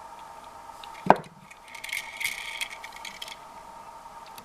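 A 1:64 die-cast car's body and base being pulled apart after the rivets are drilled out: a sharp snap about a second in as it comes loose, then a run of small scraping and rattling clicks as the parts are worked free.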